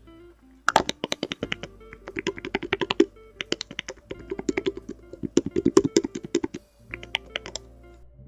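Elgato Stream Deck's keys being pressed in quick runs of clicks, several bursts of rapid presses, over background music.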